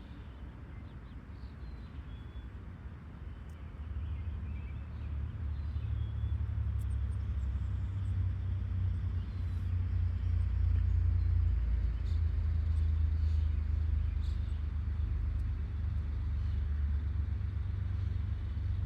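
Low engine rumble from a motor vehicle that swells about four seconds in and holds steady, with faint bird chirps and a few light clicks over it.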